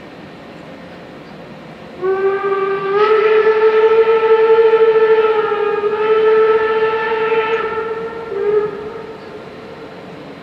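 Steam locomotive whistle: one long blast of about six seconds whose pitch lifts slightly just after it starts, then a short second toot.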